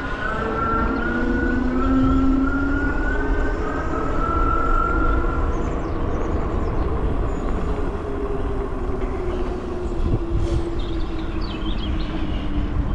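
Fiido Titan electric mountain bike's motor whining under pedal assist. Its pitch rises as the bike speeds up from a standstill, then falls slowly as it eases off, over a steady low rumble.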